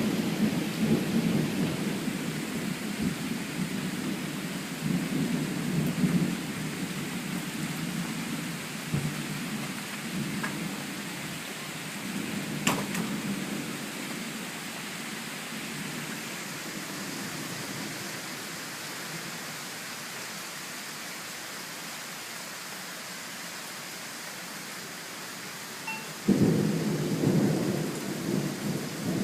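Thunder rumbling in waves over steady rain, fading through the middle, then a sudden loud thunderclap near the end.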